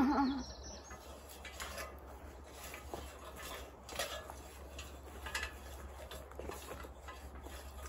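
Neversink Farm gridder, a metal frame, being dragged along a hoed soil bed: scattered light metallic clinks and rattles over soft scraping of soil. A brief voice sound comes right at the start.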